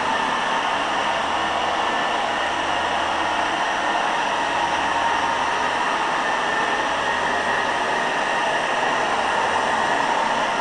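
Old Hoover carpet cleaner running: its motor gives a steady, even whir with no change in pitch or level.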